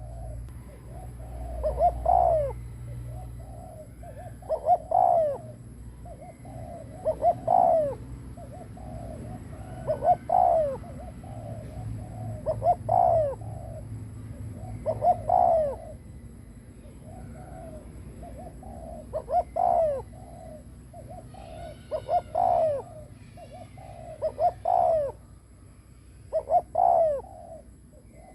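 Spotted dove cooing over and over, its bowing coo used by a decoy bird to draw in wild males: a loud phrase about every two and a half seconds, with softer notes between and one longer pause about two thirds of the way through.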